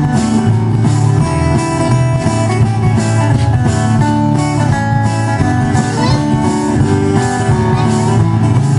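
Live band playing an instrumental passage: strummed acoustic guitars over upright bass and a drum kit keeping a steady beat.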